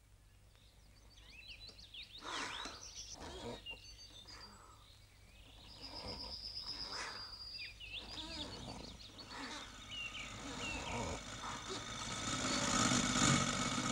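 Birds chirping, many short rising and falling whistles. Near the end a small car's engine comes in and grows louder, the loudest sound here.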